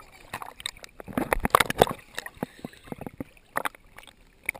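Water sloshing and splashing right at the microphone, with a quick run of plops and gurgles. It is loudest between about one and two seconds in.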